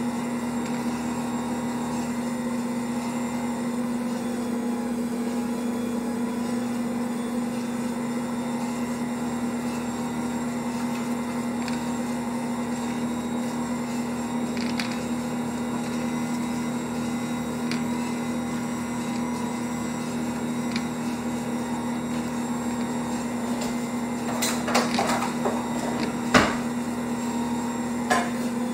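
Ankarsrum stand mixer running steadily while its dough roller and scraper knead bread dough in the stainless steel bowl, giving a steady motor hum. A few sharp knocks come near the end.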